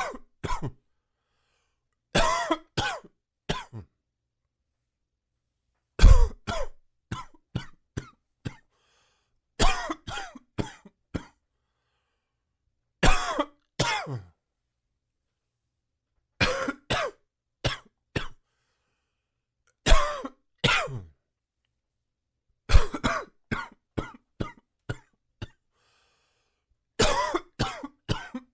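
A man's hacking little cough, coming in fits every three to four seconds: each fit opens with one strong cough followed by three or four weaker ones. The cough is brought on by allergies left untreated.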